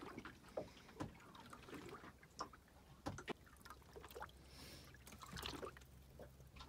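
Faint water lapping and trickling against the hull of a small drifting boat, with scattered light clicks and knocks.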